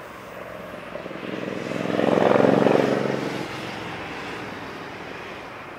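Jet airliner engines swelling to a loud peak about two and a half seconds in, then fading back to a steady hum.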